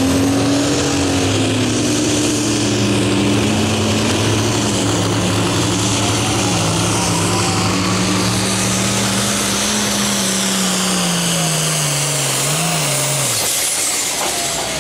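Limited Pro Stock pulling tractor's 466 cubic-inch diesel running hard under full load as it drags the sled. Its pitch sinks slowly as the sled bogs it down, then breaks off about thirteen seconds in as the pull ends.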